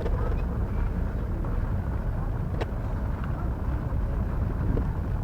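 Steady low rumble of a docking ferry's engines, with a single sharp click about two and a half seconds in.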